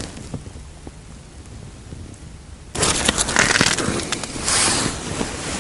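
Low background noise, then about three seconds in, a sudden stretch of rustling and crackling with a few small clicks, from a jacket sleeve and hands handling a small ice-fishing rod at a hole in the ice.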